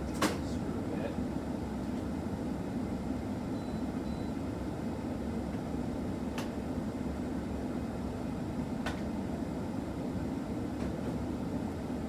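A steady low hum of background noise, with one sharp click about a quarter second in and two fainter clicks later on.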